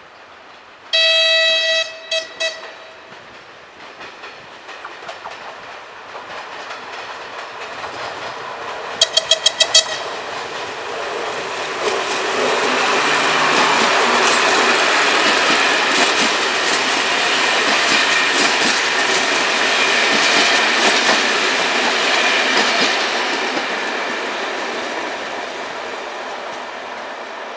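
Diesel locomotive horn: a long blast about a second in followed by two short ones, then a quick string of about five short toots around nine seconds in, a driver's greeting to trackside watchers. The passenger train then runs past, its wheels clattering over the rails, loudest in the middle and fading near the end.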